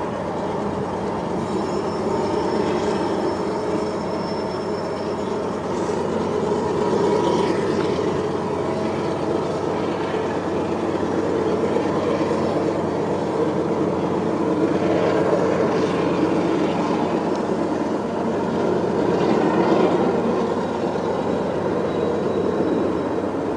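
Heavy flatcars of a freight train, loaded with oversize refinery vessels, rolling past: a steady rumble of wheels on rail, swelling and easing a little, with a faint high wheel squeal for a few seconds near the start.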